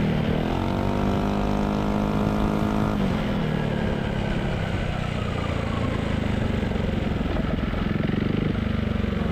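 Yamaha XMAX 250 scooter's single-cylinder engine breathing through a Villan MV1 exhaust with its dB killer fitted. It is revved up and held for a couple of seconds, the throttle is let off about three seconds in, and it runs on steadily with wind rumble. The exhaust note is heavily muted by the dB killer, even at 4000 to 5000 rpm.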